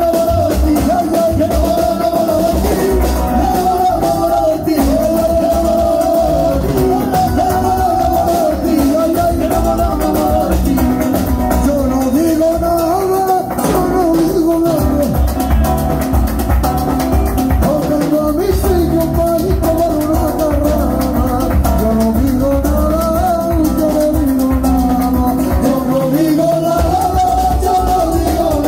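Live amplified music: male singers singing into microphones over a band with heavy bass, loud and continuous.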